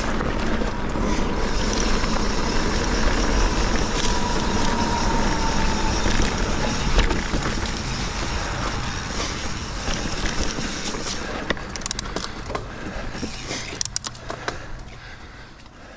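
Mountain bike rolling fast down a dirt singletrack: wind rushing over the camera microphone and tyres running on the dirt. Near the end it slows, with a scatter of clicks and rattles, and the sound dies away.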